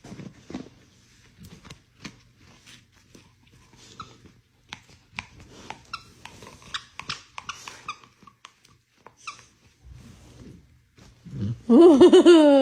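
Bulldog making faint snuffles and small grunts, then near the end a sudden loud, wavering vocal outburst that startles its owner.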